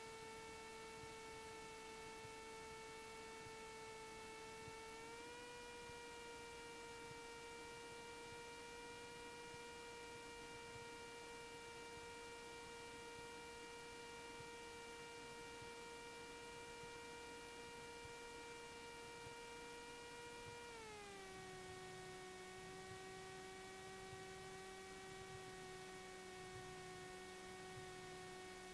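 Cessna 172S engine drone heard faintly through the cockpit intercom feed as a steady whining tone. It rises slightly about five seconds in, then drops in pitch about twenty seconds in as power comes back.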